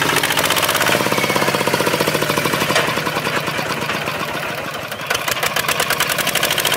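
Singto Thong STT155 small farm tractor's single-cylinder diesel engine chugging steadily under load as it pulls a four-disc plough. It eases off a little about four seconds in, then picks up again.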